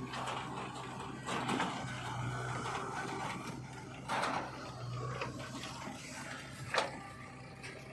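Heavy machinery engine running steadily, with three short bursts of noise about a second in, about four seconds in and near the end.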